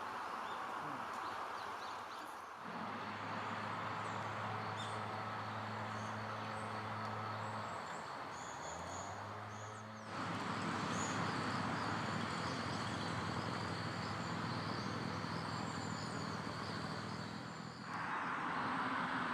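Outdoor ambience: a steady high insect trill with scattered short high chirps over a low steady hum. The mix changes abruptly about two and a half, ten and eighteen seconds in.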